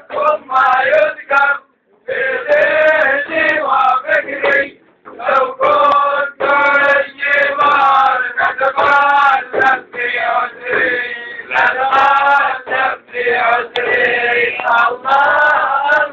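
Men chanting a Sufi devotional song together, their voices sliding and wavering, with short breaks for breath about two and five seconds in. A hand-struck frame drum accompanies them.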